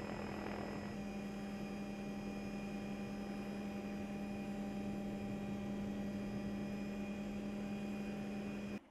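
UH-60 Black Hawk helicopter running, heard as a steady droning hum with a set of higher steady whines layered over it. The sound cuts off suddenly near the end.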